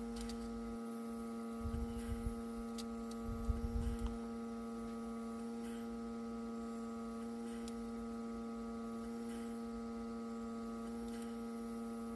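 Steady electrical hum with several even overtones, unchanging throughout. Two brief clusters of low thumps come about 2 and 4 seconds in.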